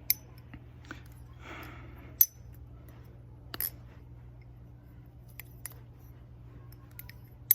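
Balisong trainer, a clone of the Jerry Hom Prodigy Trainer, being flipped: sharp metallic clacks as the handles swing and close, a handful of irregular clicks, the loudest about two seconds in and right at the end.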